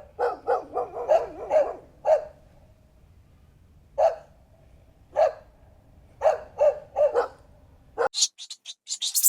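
A dog barking: a rapid volley of barks, then single barks with pauses, then another short run. Near the end it gives way to a run of quick, high-pitched chirps.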